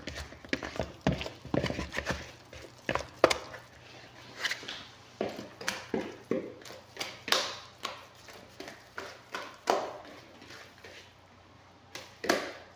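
Pizza dough being kneaded by hand in a plastic mixing bowl: irregular soft thumps and squishes, one or two a second, stopping just before the end.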